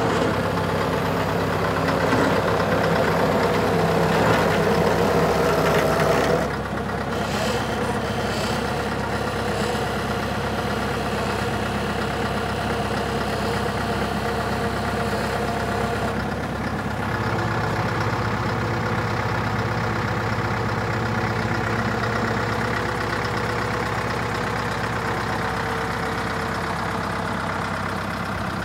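Scania Super 50 truck's diesel engine running steadily at idle while the aerial lift's boom is raised. Its note shifts abruptly about six seconds in and deepens a little past the middle.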